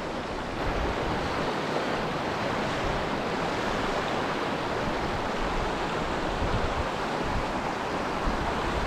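Mountain torrent rushing over rocks: a steady, dense hiss of water that gets a little louder about half a second in.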